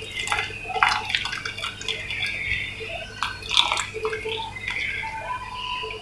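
Custard mixture poured slowly from a glass bowl into a pot of milk and vermicelli while a spatula stirs. Small splashes and irregular clicks and scrapes of the spatula against the pot.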